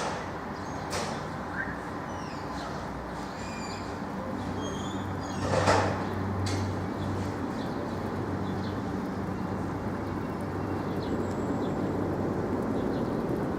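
Outdoor ambience: a steady rush of background noise with a few short bird chirps. A low hum swells and fades about five to seven seconds in, with a brief clatter at its peak.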